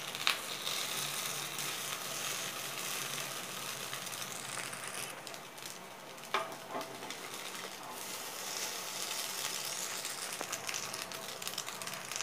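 Oil sizzling steadily in an appam pan as stuffed bread rolls shallow-fry over a medium flame. A couple of short knocks of a steel spoon against the pan come shortly after the start and again about midway.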